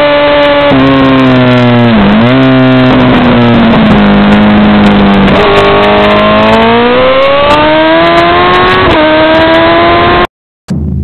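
Honda CBR1000RR's inline-four engine at racing speed, heard from the bike itself: its pitch falls as the rider slows through a corner, then rises steadily as the throttle opens onto the straight, with brief dips at gear changes. The sound cuts off abruptly near the end.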